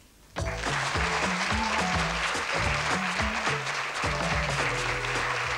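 Game show theme tune cutting in suddenly, with a moving bass line, over studio audience applause.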